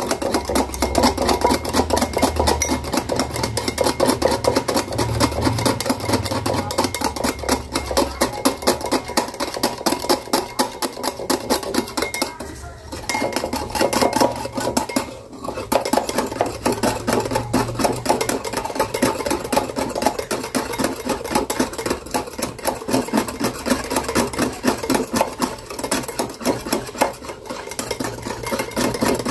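Instant coffee, sugar and water being whipped by hand with a metal utensil in a glass bowl: rapid, steady clinking and scraping of metal against glass, with two brief pauses near the middle.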